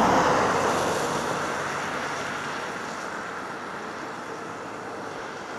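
A car driving away along a snowy road, its engine and road noise fading steadily.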